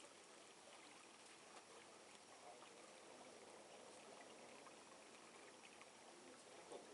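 Near silence: a faint, steady hiss with a few soft ticks.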